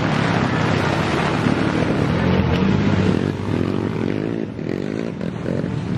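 Dirt bike engine revving up and down as the bike rides through deep mud, over the steady hiss of heavy rain.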